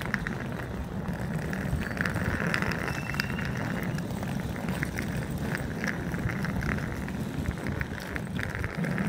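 Small wheels of rolling suitcases rumbling steadily over rough, cracked asphalt, with a scatter of small clicks and rattles.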